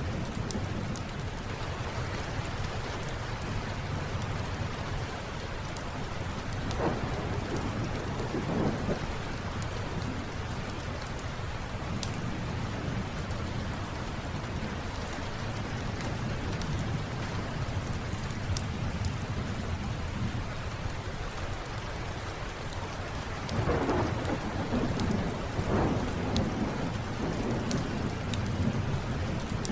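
Steady rain with thunder rumbling low underneath, swelling louder twice. Sharp, scattered crackles of a wood fire in a fireplace sit over the top.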